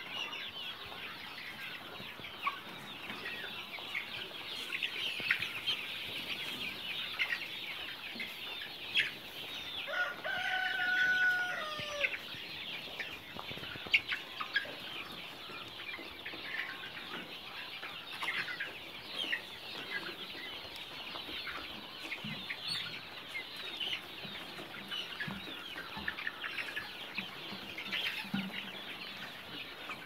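A large flock of two-month-old layer pullets cheeping and clucking in a steady high-pitched din. About ten seconds in, one longer held call stands out and falls away at its end.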